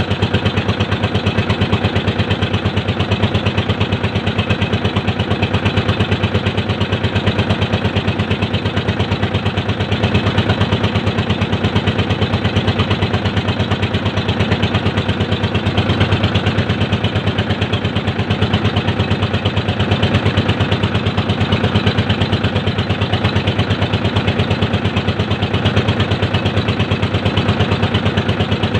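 Boat engine running steadily with a fast, even pulse, heard loud from on board as the boat cruises along a river channel.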